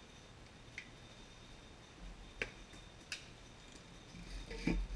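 Light clicks of metal parts and tools against the engine block during teardown, three in all, then a louder, duller knock near the end.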